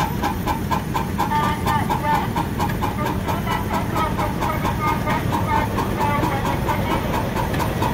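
Russell steam traction engine working under load, driving a fan by a long flat belt, its exhaust beating at an even, quick rhythm.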